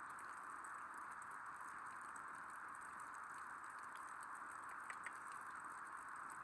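Light rain falling: a faint steady hiss with scattered drops ticking.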